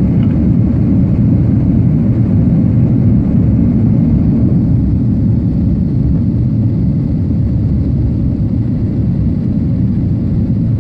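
Steady low rumble of an airliner's jet engines and rushing air, heard inside the passenger cabin during the climb after take-off.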